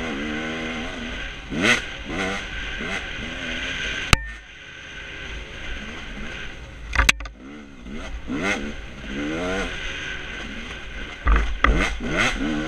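Dirt bike engine revving up and easing off over and over as it is ridden hard, with wind rushing over the microphone. Two sharp knocks cut through, about four and seven seconds in, and the engine drops back for a moment after the first.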